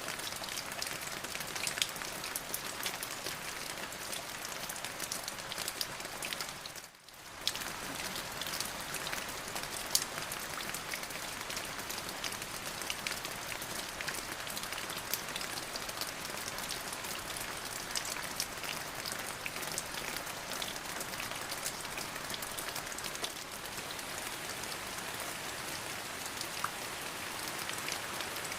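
Steady rain falling, an even hiss with many distinct drop ticks on top. About seven seconds in the sound briefly fades down and comes back, as at a join in an edited rain recording.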